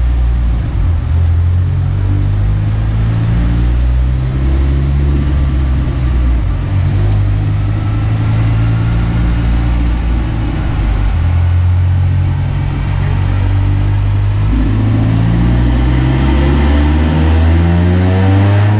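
2019 Ford Mustang EcoBoost's turbocharged 2.3-litre four-cylinder, fitted with a Turbonetics NX2 turbo, running on a chassis dyno. Its pitch steps up and down several times and starts to rise steadily near the end.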